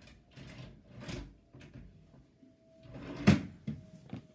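Things being handled on a tabletop: a few brief scrapes, then one sharp loud knock about three seconds in, followed by a couple of lighter clicks.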